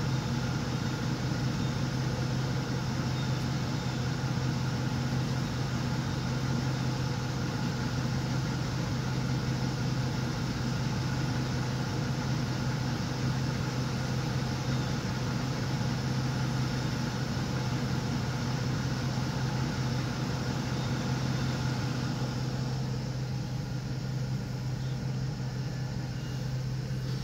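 Car engine idling with a steady, constant low hum, heard from inside the car, getting slightly quieter for the last few seconds.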